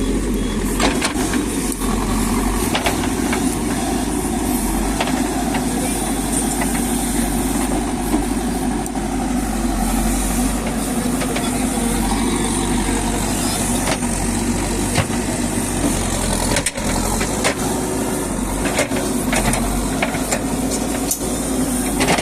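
JCB backhoe loader's diesel engine running steadily while digging, with a few short knocks scattered through.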